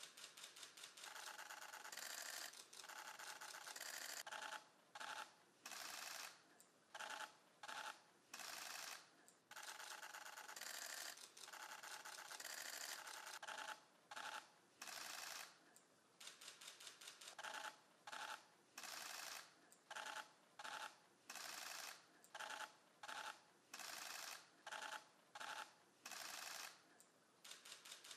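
Camera shutters firing in rapid bursts of many clicks each, burst after burst with short pauses between, faint.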